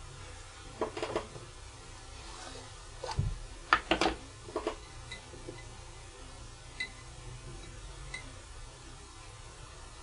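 Light knocks and clinks of small craft items being handled on a table, with a small jar set down among them. The loudest knocks come about four seconds in, followed by a few faint ticks.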